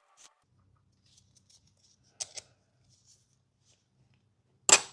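Small metal parts of a bar-end mirror's folding mount clicking and tapping as a screw is fitted through it: a few faint ticks, a sharper click a little past two seconds in, and a loud click near the end.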